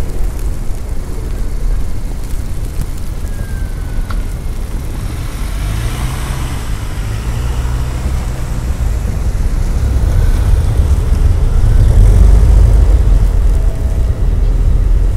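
Snowstorm wind buffeting the microphone in a loud, low rumble that grows heavier from about ten seconds in, with a vehicle's tyres hissing past on the snowy road about six seconds in.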